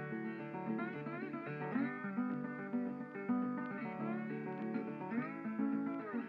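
Background music: acoustic guitar, plucked and strummed, with some notes sliding in pitch.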